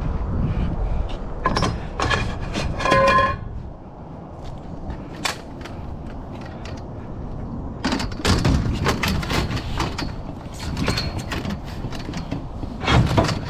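Scrap being handled and loaded: irregular clanks and knocks, with a short metallic ring about three seconds in and a busier run of clattering in the second half.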